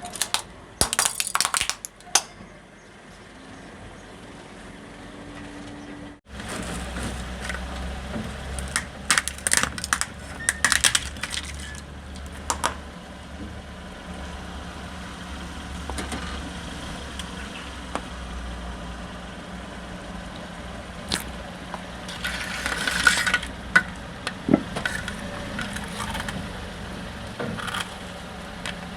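Car tyres rolling over plastic objects and crushing them: several bursts of sharp cracking and crunching, over the low, steady running of the car's engine.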